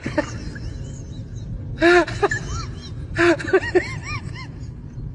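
A few short, high-pitched vocal sounds that rise and fall in pitch, in bursts near the start, about two seconds in, and in a quick run of three or four about three seconds in, over a steady low background hum.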